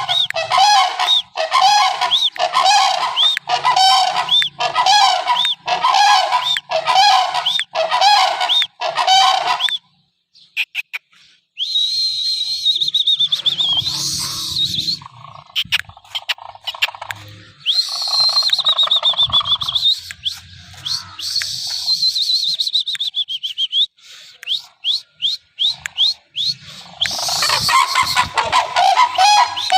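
Cranes calling: a fast run of loud, repeated honking calls, about two a second, that breaks off about ten seconds in. Higher, wavering whistle-like calls follow in the middle, and the honking calls return near the end.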